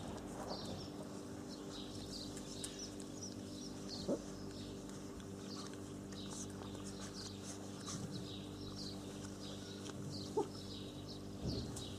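Puppies giving three brief whines or yelps while they play, the first one rising in pitch. Small birds chirp steadily in the background over a low hum.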